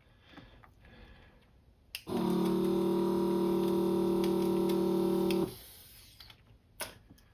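Electric desoldering tool's vacuum pump, switched on with a click about two seconds in. It runs with a steady hum for about three and a half seconds while sucking molten solder off a capacitor's leads, then stops. A sharp click comes near the end.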